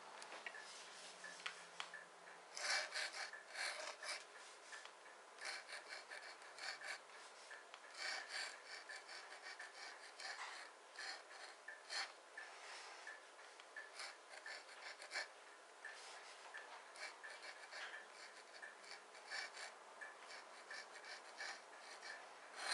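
Faint scratching of a steel pointed dip-pen nib drawn across textured paper while writing cursive business penmanship. It comes in short bursts of strokes, with brief pauses between letters and words.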